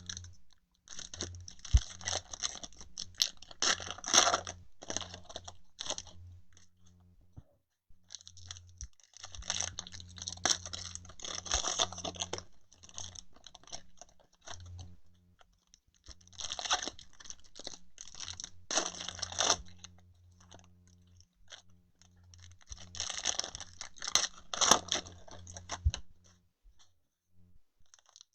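Crinkly plastic wrappers of baseball trading card packs being torn open and handled, in four bouts of crackling with short pauses between.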